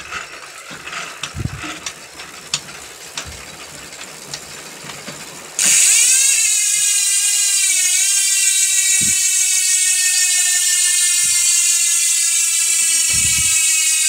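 Sword performance rear hub's six-pawl freehub freewheeling fast. After a few seconds of scattered light clicks, a sudden loud ratcheting buzz starts about halfway in, its pitch falling slowly as the wheel coasts down.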